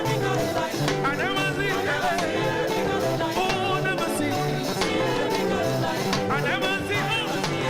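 Live gospel band playing an upbeat song with a steady beat and a bass line, with singing over it.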